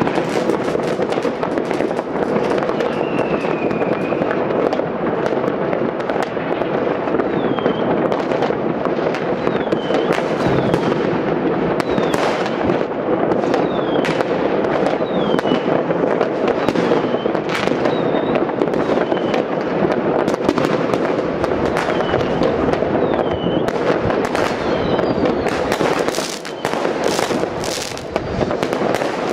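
Distant citywide fireworks and firecrackers (Silvester Böller and rockets): a continuous dense crackle of many bangs, with short falling whistles every second or so. Sharper, louder cracks cluster near the end.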